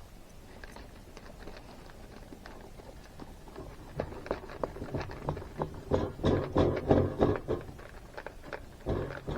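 A quick run of light knocks, clicks and rustling, as of things being handled and set down. It grows busy about four seconds in, is loudest around six to seven seconds, and has another short burst near the end.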